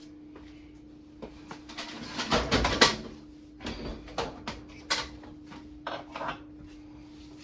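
Knocks and scraping clatter from an over-the-range microwave being shifted against the cabinet to line up its mounting bolt, loudest about two and a half seconds in, then a few lighter knocks, over a steady low hum.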